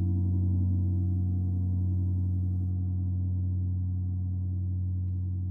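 Gong ringing on after a strike: a deep hum with higher overtones above it, slowly fading.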